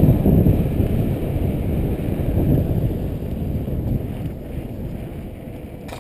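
Wind rumbling on a helmet-mounted camera's microphone as a mountain bike rolls along a paved street, dying away gradually.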